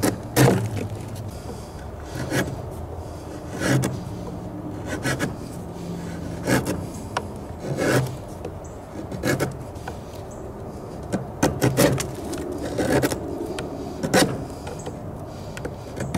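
A Glock field knife's blade, its point jammed into a wooden board, shaving a wooden stick drawn along its edge. Each stroke gives a short scraping rasp of wood, about one every second and a half.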